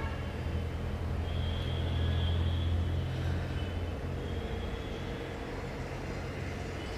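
Low steady rumble that swells about two seconds in and then eases off.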